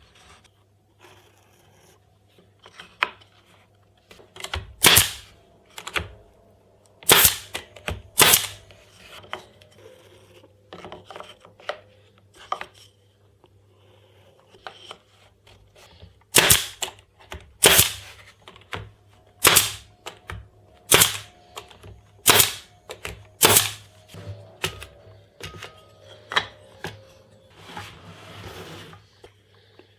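A series of sharp, single snapping impacts: a few scattered ones, then a run of six about every second and a half, with softer knocks and handling between.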